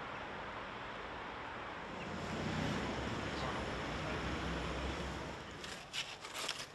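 Steady outdoor traffic noise, with a passing vehicle's low rumble swelling and fading through the middle, then a scatter of crackling clicks near the end.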